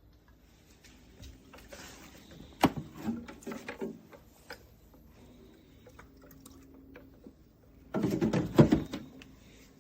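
Knocks and clatter from something being handled, in two bouts: a sharp knock with rattling about two and a half seconds in, and a denser burst of knocks about eight seconds in.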